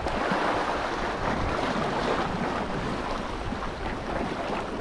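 Steady rush of sea waves with wind blowing on the microphone.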